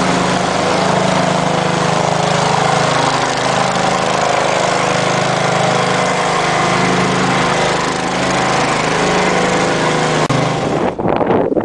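A small engine running steadily at a constant speed. Near the end it cuts off abruptly and wind buffets the microphone.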